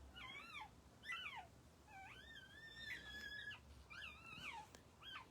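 Newborn puppies squealing and whimpering: about five faint, high-pitched cries that rise and fall in pitch, one of them longer and held in the middle. These are the ordinary cries of a young litter, which the mother dog handles.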